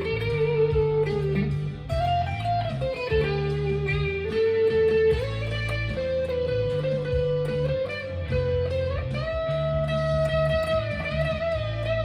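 Stagg SEL-STD electric guitar, split-coil pickup sound, through a Fender Mustang LT25 amp, playing a sustained single-note lead line with bends and slides over a steady low bass accompaniment.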